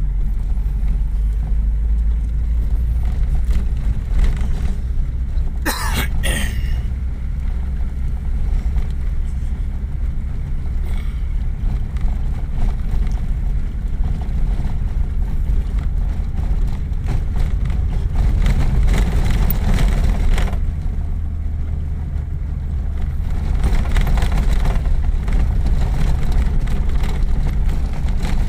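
Vehicle driving on a dirt road, heard from inside the cab: steady low engine and road rumble. A brief sharp noise comes about six seconds in.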